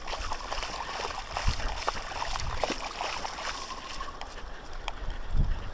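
Sea water sloshing and washing at the shoreline, with scattered small clicks and a low thump near the end.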